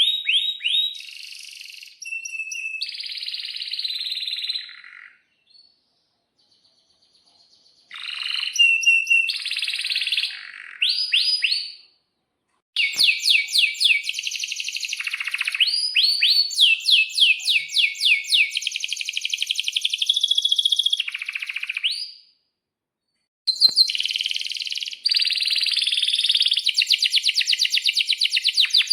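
Domestic canary singing long phrases: rapid trills of quickly repeated high chirps and sweeping notes, broken by two short pauses.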